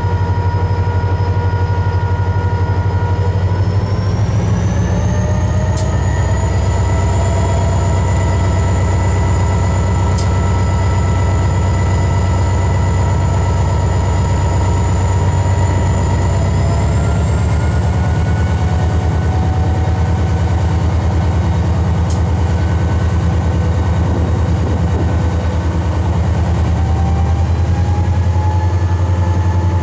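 Diesel locomotive CLF 2's engine running while the locomotive stands still, a heavy steady drone whose pitch steps up three times: about four seconds in, just past halfway, and near the end.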